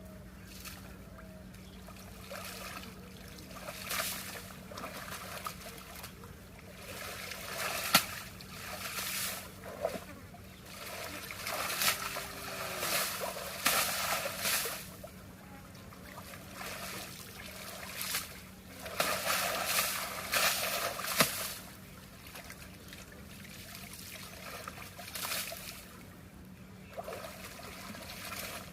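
Water splashing and trickling in irregular swells, with a few sharp knocks, over a steady low hum.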